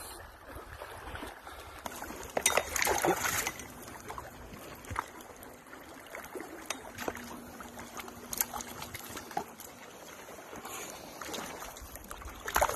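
Shallow water splashing and trickling around a wading angler's legs and a landing net, with louder splashing between about two and a half and three and a half seconds in, and a few sharp knocks later.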